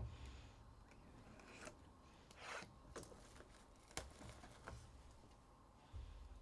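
Faint handling of trading cards on a table: a sharp tap at the start, a short rustle of cards or pack wrapping about two and a half seconds in, a few light clicks, and a soft thump near the end.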